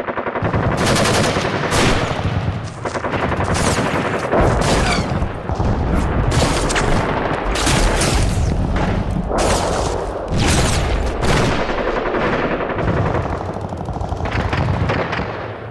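Video game battlefield sound effects: rapid bursts of automatic gunfire, nearly continuous and heavy in the low end, dying away near the end.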